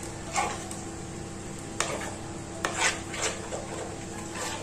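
A metal spoon stirring and beating a thick chickpea-lentil batter in a bowl, with a series of uneven scrapes and clinks of the spoon against the bowl.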